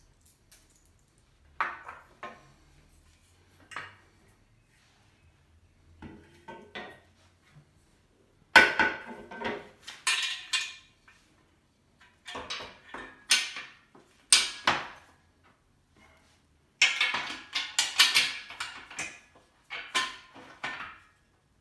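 Metal rails, brackets and screws of a flat-pack table frame clanking and clicking as they are handled and fitted, in irregular clusters of clatter that grow busier about halfway through.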